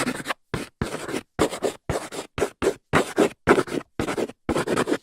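A quick series of short scratchy strokes, about three a second, each cut off sharply into silence, like scribbling.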